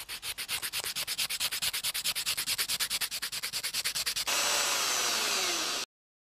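Sandpaper rubbing back and forth on a carved wooden lure body in quick, even strokes, about ten a second. About four seconds in, this gives way to a steady, unbroken rasp, which then cuts off abruptly.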